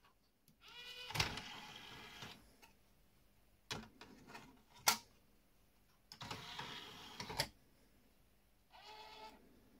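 DVD tray mechanism of an LG DVC5930 VHS/DVD combo recorder: the tray motor whines as the tray slides out, two sharp clicks come as a disc is set in the tray, then the motor whines again as the tray draws back in. A short whir near the end follows the tray closing.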